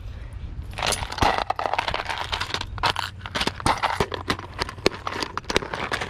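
Close rustling and crinkling with many sharp clicks, starting about a second in: fishing tackle being rummaged through and handled while a soft-plastic swim bait is got out.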